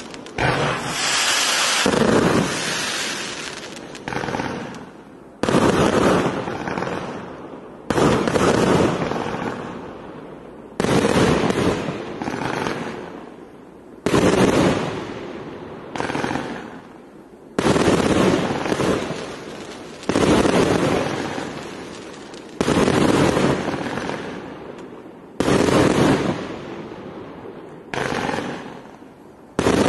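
Firework cake firing its shots one after another: about a dozen sudden blasts, two to three seconds apart, each tapering off as its burst of sparks burns out.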